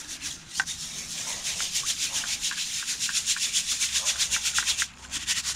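A handheld sieve shaken back and forth, the coarse aquarium soil rattling in it while play sand sifts through the mesh, in a quick, even rhythm that stops shortly before the end.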